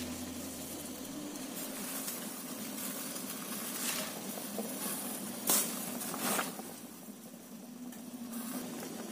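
Water boiling in a stainless-steel pot packed with fresh cassava leaves, a steady hiss and bubbling. A few sharp clicks come through it, the loudest about five and a half seconds in.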